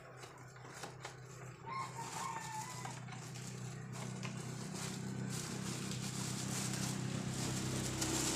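Cardboard box and plastic wrapping rustling and crinkling as a boxed ring light is slid out and handled, growing louder toward the end over a low steady hum. A short bird call sounds in the background about two seconds in.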